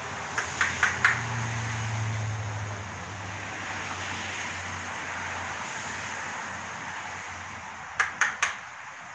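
Ratchet wrench on a spark plug socket clicking in two short runs: four quick metallic clicks about half a second in, and three more near the end. A steady hiss lies underneath.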